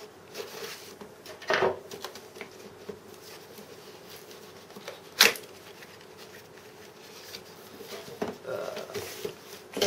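Hands handling and working at the seal of a cardboard retail box: rustling, scraping and small clicks, with a sharp loud snap about five seconds in and a shorter burst of noise near the start. A faint steady hum sits underneath.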